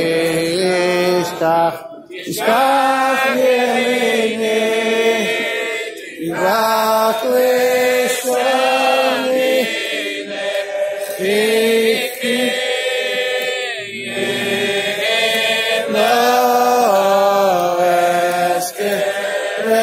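A large group of men singing together without instruments: a slow, chant-like melody sung in long phrases with brief pauses between them.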